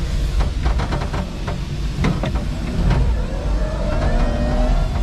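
5-ton electric forklift truck driving across a concrete warehouse floor: a steady low rumble with a run of knocks and rattles from the mast and forks over the first half.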